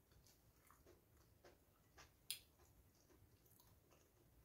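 Faint chewing of a mouthful of rice and fried eggplant, with scattered soft mouth clicks. One sharp click about halfway through is the loudest sound.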